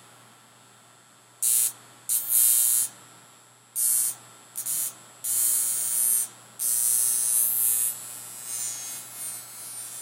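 Violet wand's glass electrode sparking against skin, crackling in short hissing, buzzy bursts: about six of them, the longest about a second, with fainter crackles near the end.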